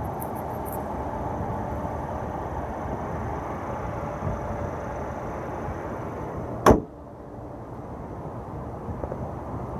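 Hood of a Mercedes C300 sedan being shut: one sharp bang about two-thirds of the way through. Before it, a steady noise comes from the open engine bay; after the hood shuts, it is quieter.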